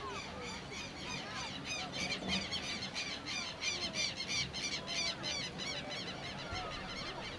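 A bird squawking in a fast series of harsh, repeated calls, about four to five a second. The run starts about a second and a half in and dies away a couple of seconds before the end.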